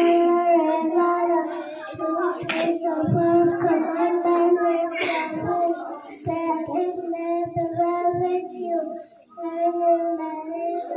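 Young children singing a song, long held notes with short breaks between phrases.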